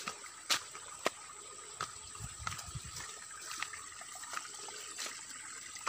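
Small forest stream trickling over rocks, with scattered sharp clicks throughout.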